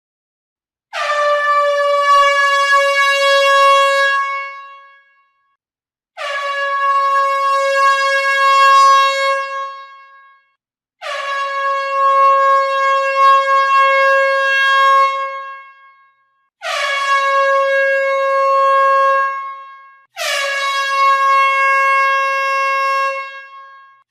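A horn blown in five long blasts, each a few seconds long, starting slightly sharp and sliding down onto one steady, bright note before fading away.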